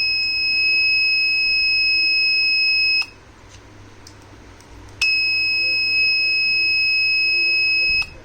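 Arduino gas-detector alarm buzzer sounding a steady, high-pitched tone. It cuts off about three seconds in and comes back about two seconds later for another three seconds.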